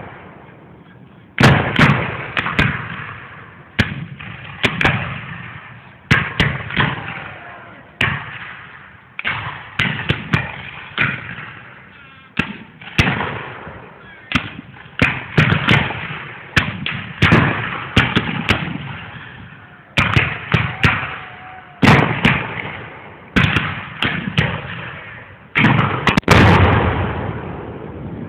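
Black-powder muskets firing blank rounds in a scattered, ongoing fusillade, about twenty sharp shots, roughly one every second, each with an echoing tail that trails off.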